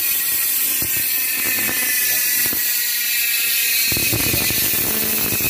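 Bicycle rear freehub buzzing as the rear wheel coasts with the cranks still, its pawls ratcheting into a steady, high-pitched whir. A lower rumble joins about four seconds in.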